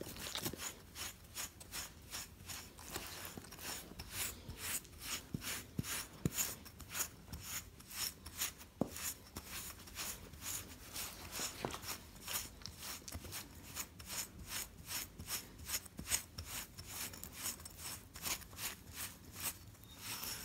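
Pumice grill brick scraping over a short-haired American Bully's coat, raking out dead undercoat hair: a steady run of rasping strokes, about two or three a second.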